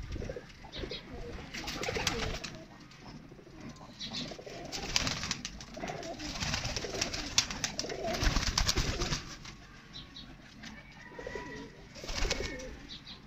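Domestic pigeons cooing repeatedly in their loft, the low coos overlapping. Louder noisy stretches come about two seconds in, through the middle, and near the end.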